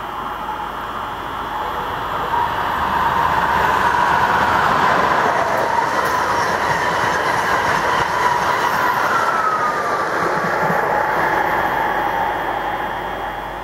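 High-speed passenger train passing at speed on the high-speed line: a rushing noise that builds as it approaches, holds loudest for several seconds while the carriages go by, and fades near the end as it draws away.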